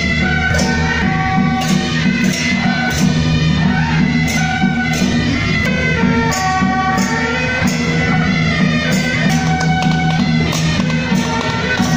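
Live Taiwanese temple procession music: a loud band playing a melody in held notes over steady drumming, with frequent cymbal crashes, in the style of beiguan processional music.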